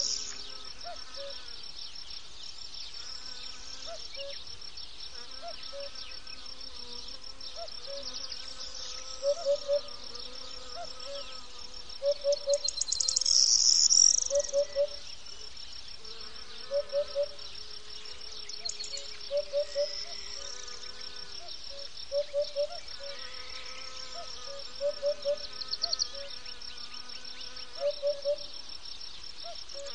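Insects chirring steadily in a high, finely pulsing tone, swelling louder around the middle. Over it, short low calls come in quick groups of two to four, repeated every two to three seconds.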